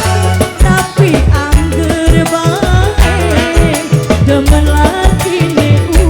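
Dangdut band music: drums keep a steady beat under a deep bass line, with a wavering, ornamented melody line above.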